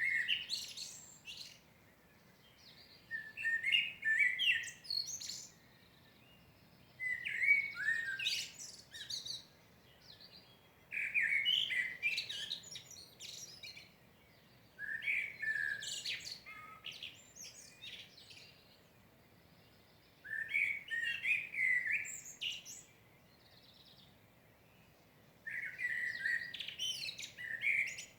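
A songbird singing in separate phrases of about two seconds each, with a pause of a second or two between them, seven phrases in all.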